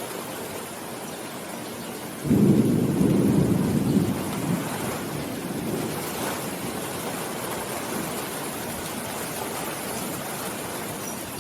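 Steady rain with a sudden low rumble of thunder about two seconds in, loudest for a couple of seconds, then rolling away over the next few seconds.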